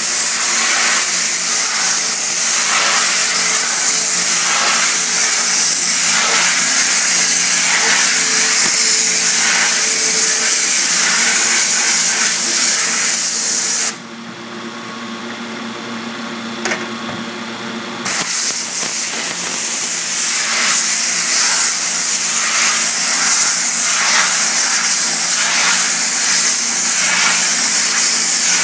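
Pressure washer spraying water onto a screen-printing screen's mesh to strip the softened emulsion: a loud, steady hiss of the jet over a steady hum. About halfway through, the spray stops for roughly four seconds while the hum carries on, then starts again.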